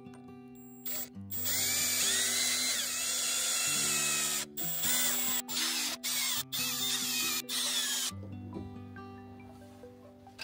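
Cordless drill-driver with a socket bit driving bolts through a steel post-base plate into a timber post. The motor whines in one long run from about a second in, then in a string of short trigger bursts, and stops about two seconds before the end.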